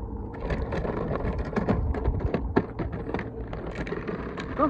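Plastic wheels of a child's toy ride-on motorcycle rolling over gritty asphalt as it is pushed along, with dense irregular crackling from about half a second in.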